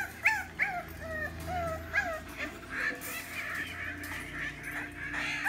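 Bulldog puppies whimpering and yipping: a string of short, high whines, each dropping in pitch, coming a few times a second, then turning into a busier, overlapping whining about halfway through.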